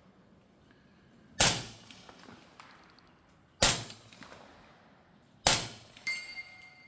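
Three suppressed shots from a .300 Blackout rifle, about two seconds apart, each a sharp crack with a short echo. About half a second after the third shot a steel target plate rings with a clear, lingering tone.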